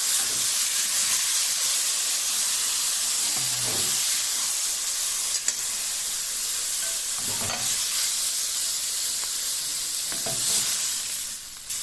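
Pieces of chuck eye steak searing in a hot stainless steel skillet: a steady, loud sizzle, with a few short scrapes as the pieces are stirred in the pan.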